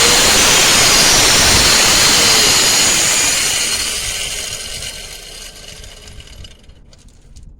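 Warrior 4-1/2 inch angle grinder with a thin cut-off disc running loud against metal. About three seconds in it stops cutting and winds down, fading away over the next few seconds.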